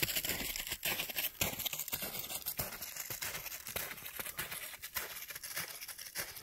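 Footsteps crunching on packed snow while walking, a crunch about twice a second.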